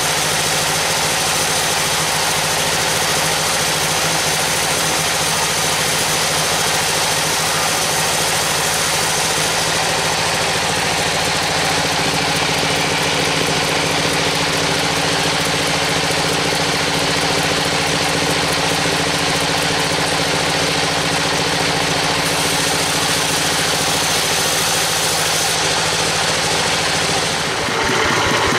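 Vertical band sawmill running steadily, its blade sawing through teak, a continuous mechanical hum under a strong high hiss. The sound shifts briefly near the end.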